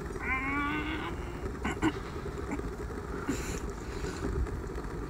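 Person eating hard seafood with the mouth full: a closed-mouth "mmm" hum lasting about a second near the start, rising slightly in pitch, then a couple of sharp clicks as she bites. A steady low rumble lies underneath.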